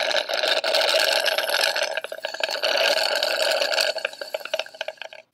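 Kettle boiling: a steady rushing hiss of steam and bubbling water that breaks into scattered crackles about two seconds in, then fades and stops near the end.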